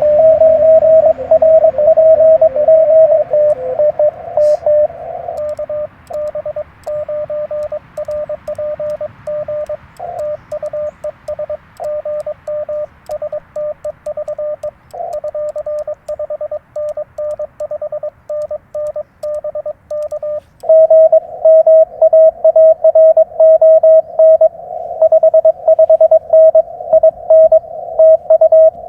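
Morse code (CW) tones from a Yaesu FT-891 HF transceiver: a single mid-pitched beep keyed on and off in quick dots and dashes. It is loud for the first few seconds, weaker through the middle, and loud again from about two-thirds of the way through, like two sides of a Morse exchange.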